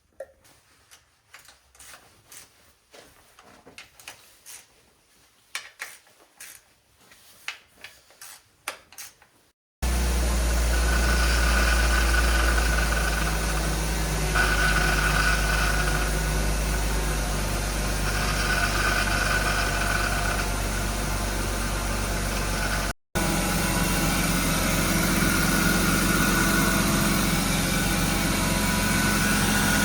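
Scattered light clicks and taps, then, about ten seconds in, the BMW E36's M52B25 2.5-litre straight-six comes in abruptly, idling steadily, with a momentary dropout about two-thirds of the way through.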